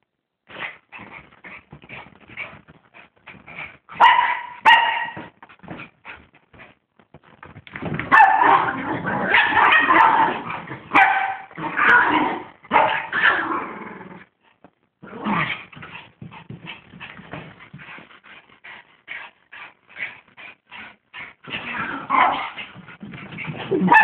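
A soaked dog thrashing about on a blanket-covered couch, making playful growls, whimpers and yips between quick scuffs of fabric. The vocalising is densest from the middle of the stretch and again near the end.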